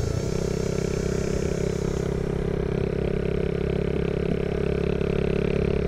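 Honda Monkey 110's small single-cylinder four-stroke engine running at a steady cruising speed, its pitch holding even.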